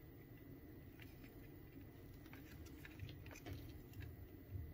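Faint, scattered small clicks and light rubbing from a wireless headphone's circuit board and plastic ear-cup housing being handled by hand, over a low steady hum.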